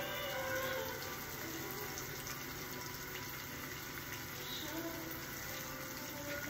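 Omelette frying in a pan, a steady hiss.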